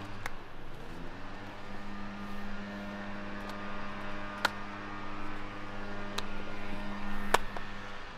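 Sharp hand slaps of high-fives, a few single claps seconds apart, the loudest near the end, over a steady low hum.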